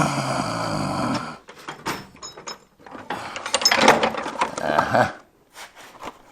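Metal hand tools clattering and scraping as they are rummaged through, in two bursts: one over the first second or so, another from about three to five seconds in.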